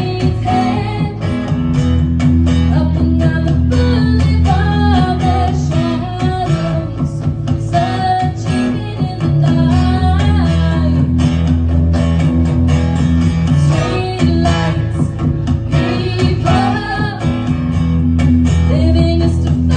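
Live amplified pop performance: a woman singing into a microphone over a strummed acoustic guitar, with sustained low bass notes underneath.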